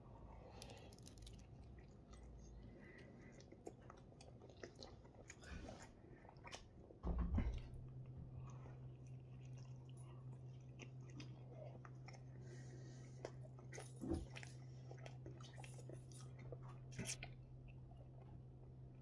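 A man biting and chewing a thin-crust pizza slice close to the microphone, with small soft crunches of the crust. About seven seconds in there is a single louder thump, after which a steady low hum sets in.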